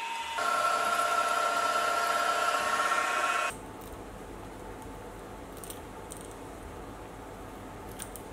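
Drill bit boring into an aluminium block, a steady whine that stops abruptly about three and a half seconds in. After that comes a quieter low hum with a few faint clicks as the hole is threaded by hand with an M6 tap.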